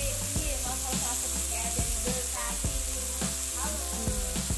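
Marinated chicken breasts sizzling steadily in a nonstick frying pan, under background music with a regular beat.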